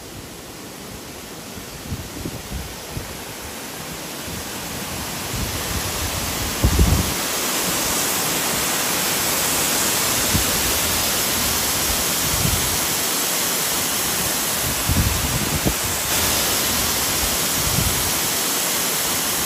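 Water pouring down a stone spillway in a steady rush, growing louder over the first several seconds and then holding. Gusts of wind buffet the microphone with low thuds.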